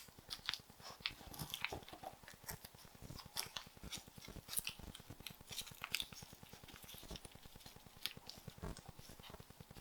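Faint, irregular crackling and light clicks as a gimbap is rolled up by hand in a rolling mat, the dried seaweed sheet crinkling as it wraps around the rice and fillings.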